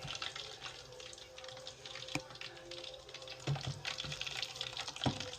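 Battered chicken pieces frying in hot oil: a fine, steady crackle, with three sharp knocks against the pan.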